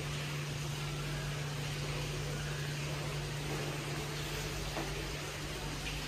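Steady ride noise inside a descending Hitachi lift car: an even hum with a constant low tone under a soft rush of air.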